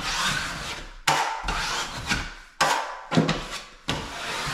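Scraping strokes along a plasterboard joint as paper joint tape bedded in joint compound is smoothed down, about five strokes, each starting sharply and fading.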